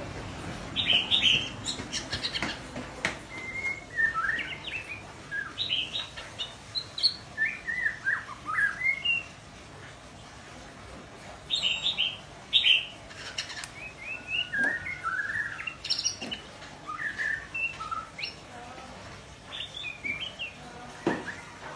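Young white-rumped shama practising its song: a string of short chirped and whistled phrases, with a pause of about two seconds near the middle.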